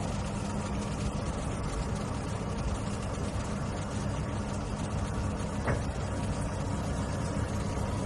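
CAT 432F2 backhoe's diesel engine running steadily, powering the Dazzini QST3000D hydraulic chain saw mounted on it, with a constant low hum.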